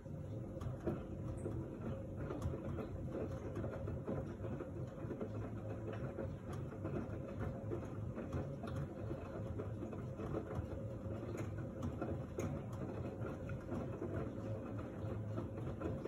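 LG F1289TD direct-drive front-loading washing machine turning its drum with a wet, sudsy load: a steady low machine hum with uneven sloshing and tumbling and a few light clicks. It gets louder just as it begins.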